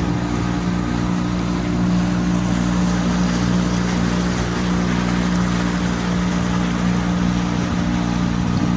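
Motorboat engine running steadily at constant speed, a low even drone with water rushing past the hull.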